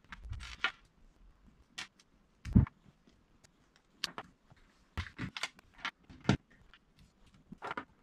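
Hard plastic Lego Bionicle parts clicking and snapping together as they are fitted and handled, in irregular separate clicks. The loudest, about two and a half seconds in, is a sharper knock with a dull thud.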